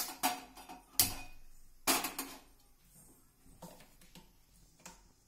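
Clicks and metal clanks at a gas stove: the burner knob turned and a steel kadai set down on the burner grate. There are three sharp knocks in the first two seconds, the last the loudest, then a few light taps.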